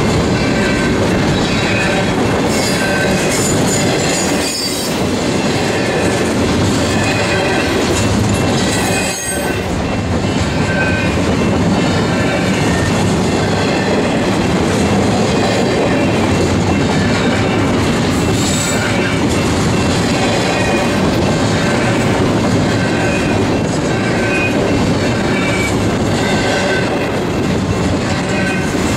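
Double-stack intermodal container well cars rolling steadily past, a continuous noise of steel wheels on rail, with short faint high-pitched wheel squeals now and then.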